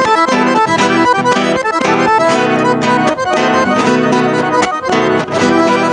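Instrumental music: an accordion (sanfona) playing the melody over a plucked string accompaniment with a regular beat.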